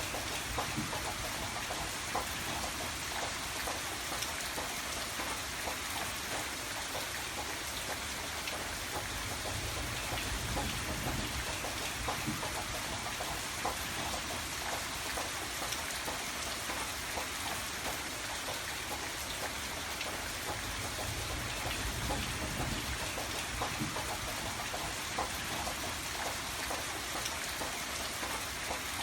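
Steady rain falling, with many separate drop hits heard close by.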